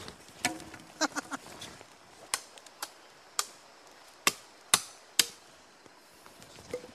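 Machete chopping into a sapling: a series of sharp blows at irregular spacing, the three loudest about four to five seconds in.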